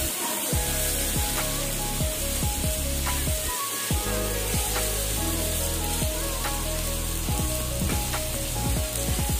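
Tomatoes and vegetables sizzling in hot oil in a kadai while a metal spatula stirs and scrapes the pan in repeated short strokes, with background music playing.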